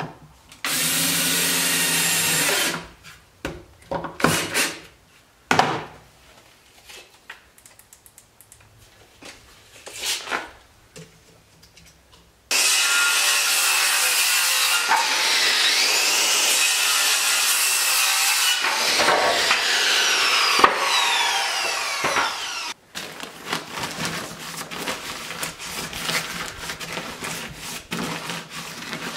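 Power tools cutting and fastening wood. A short burst of a power tool comes about a second in, followed by knocks and handling of boards. From about the middle, a power saw cuts a board for about ten seconds, its pitch sagging and recovering under load, then stops suddenly, followed by lighter clattering of tools and wood.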